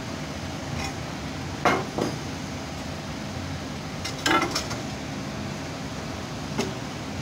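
Steel parts clanking against a cut mild-steel plate as a wheel hub and a length of steel pipe are handled and set down on it. There are a few sharp metallic knocks, with a cluster of them just after the middle, over a steady workshop hum.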